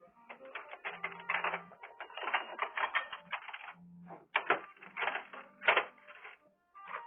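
Metal kitchen utensils clattering and clinking in quick clusters as someone rummages through a utensil drawer.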